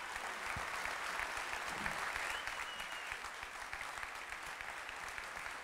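Audience applauding, a dense run of hand claps that eases off slightly toward the end.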